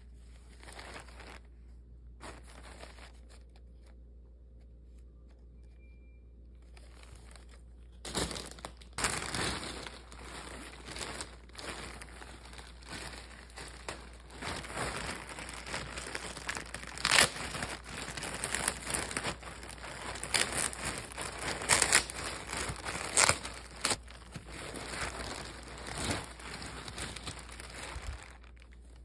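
Thin plastic garment bag crinkling and crackling as it is handled and pulled open. The first eight seconds or so hold only faint handling; then the crinkling runs on densely with sharp crackles until just before the end.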